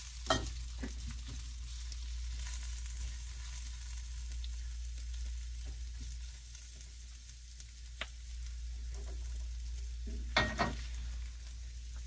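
Peppers and onions frying in hot oil in a wok, a steady sizzle, with a few sharp knocks of a utensil against the wok as they are stirred.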